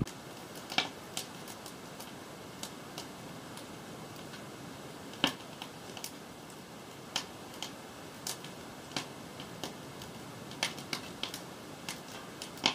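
Freshly lit wood fire of split kindling and cardboard crackling, with sharp irregular pops about once or twice a second over a faint steady hiss; the loudest pop comes about five seconds in.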